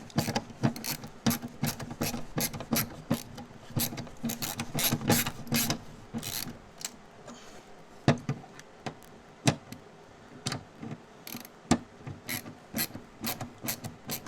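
A hand ratchet clicking, in quick runs for the first six seconds or so, then in single clicks spaced about a second apart.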